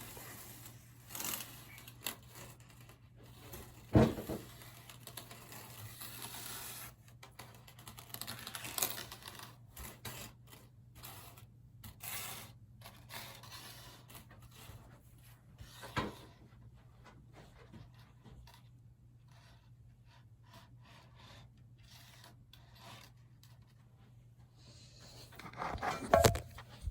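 Paperclips handled and hooked together by hand: scattered small clicks and scrapes, with a few sharper knocks about four seconds in, about sixteen seconds in and near the end, over a steady low hum.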